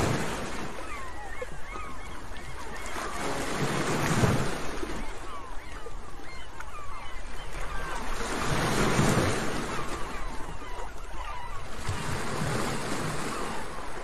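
Sea waves washing onto a shore, a steady surf hiss that swells and falls back four times.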